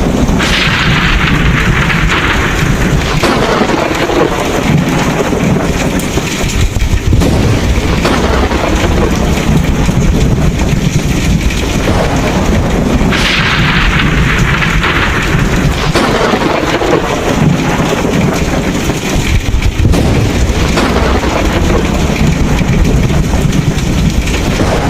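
Thunderstorm: steady heavy rain under a deep rumble of thunder, with a loud peal about half a second in and another about halfway through, each rolling away over several seconds.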